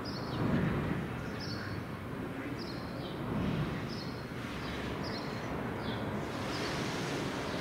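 Street traffic rumbling steadily, with a short, high, falling chirp repeating about once a second, like a small bird calling.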